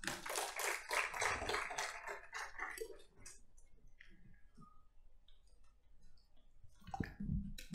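Audience applauding, dense at first and thinning to scattered claps after about three seconds.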